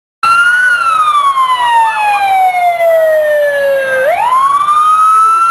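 Police motorcycle siren wailing. It starts suddenly, falls slowly in pitch for about four seconds, then rises back up near the end.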